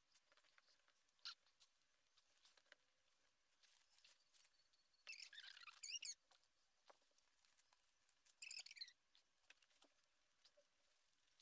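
Faint pencil strokes scratching on drawing paper: two short scratchy spells about five and eight and a half seconds in, with a few light ticks of the pencil between.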